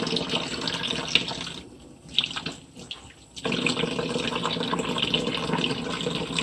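Water running from a tap in a steady stream, cutting out for about two seconds partway through and then running again.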